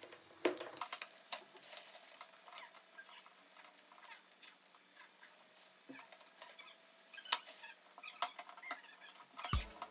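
Paper cards being handled and fixed along a board edge: scattered crackly paper rustles and light clicks and taps, the sharpest about half a second in and again about seven seconds in.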